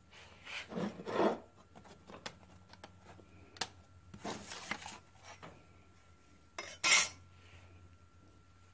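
A flat steel plate being slid and turned on a wooden workbench: two spells of scraping and rubbing, then a short sharp metal clatter about seven seconds in, the loudest sound.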